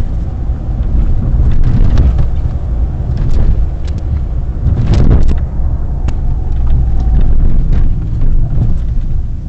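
Mini Cooper on the move, heard from inside the cabin: a loud, steady low rumble of engine and road noise, with a few short knocks from bumps along the way.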